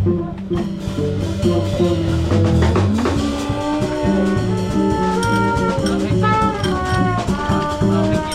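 Live jazz band playing: a brass melody of held, stepping notes over a moving bass line and a drum kit.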